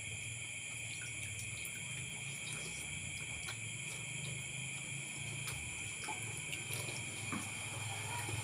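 Steady high-pitched chorus of night insects, several unbroken shrill tones at once, over a low steady hum, with a few faint scattered clicks.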